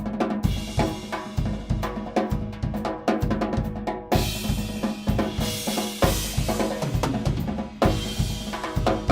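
Drum kit played solo: rapid bass drum and snare strokes, with cymbal crashes about half a second in, about four seconds in and near the end.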